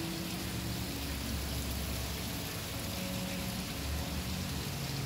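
Steady, even hiss of background noise, with faint low hums and tones underneath.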